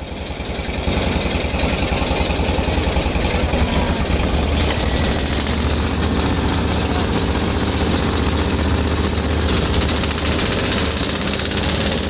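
Boat engine running steadily under way, a loud, deep chugging drone. It swells up over the first second, then holds even.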